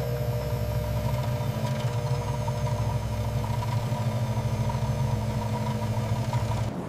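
Laboratory stirrer's motor running with a steady low hum and a few steady higher tones, briefly dipping near the end.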